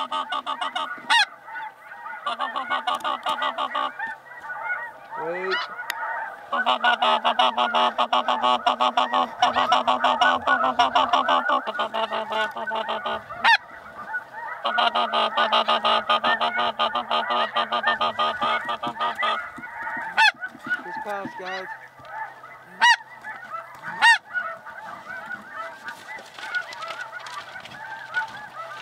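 Snow geese calling in a dense chorus of many overlapping high honks, thinning briefly about five seconds in and growing fainter near the end, with a few sharp, louder single calls standing out.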